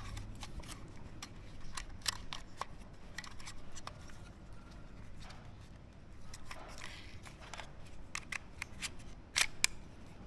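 Scattered small clicks and taps with some rustling as a compact foldable drone is handled, with a louder pair of clicks near the end.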